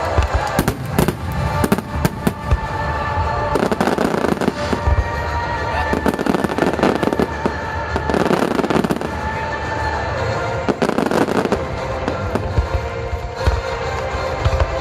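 Fireworks display: repeated bangs of shells bursting, with crackling, over music playing throughout.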